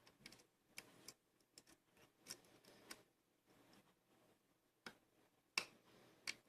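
Faint, irregular clicks and ticks of a lock pick working the pins of a challenge lock under tension, spaced at uneven intervals, with the loudest click about five and a half seconds in.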